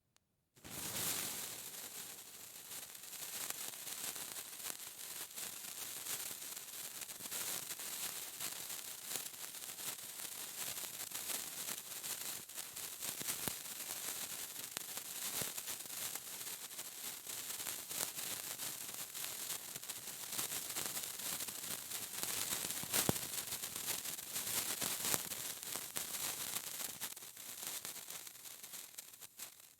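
Sparkler burning: a continuous fizzing hiss full of fine crackles and tiny pops, starting about half a second in.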